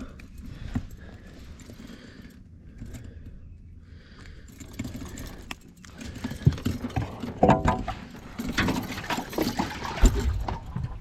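Rattling, clicks and knocks of fishing gear being handled in a boat, sparse at first and getting busier and louder from about six seconds in, with a brief squeak in the middle of the clatter.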